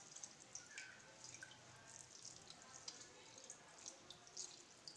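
Faint dripping and wet squelching as a ball of fresh cheese curd is squeezed by hand over a steel bowl, whey trickling out in many small irregular drips.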